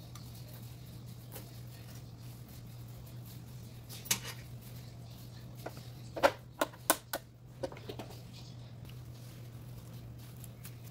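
Cuisinart sandwich maker's lid being lowered and closed over the empty plates: one sharp click, then a quick run of about five sharp clacks about two seconds later. A steady low hum runs underneath.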